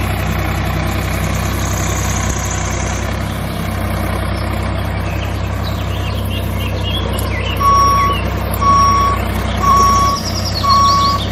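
Tractor engine running steadily, a recorded engine sound laid over a toy tractor. From about eight seconds in, a reversing alarm beeps about once a second, four times, with faint bird chirps in the background.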